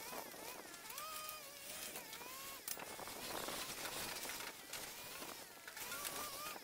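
Cordless drill or screw gun whining in short runs, its pitch rising as it spins up, holding, then dropping, with clicks and a rasping stretch in the middle, typical of driving screws into a steel stud frame.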